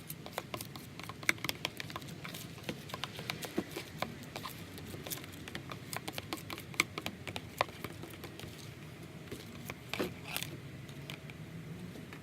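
Utensil stirring clear glue and hot water in a bowl, with many irregular light clicks and taps against the bowl.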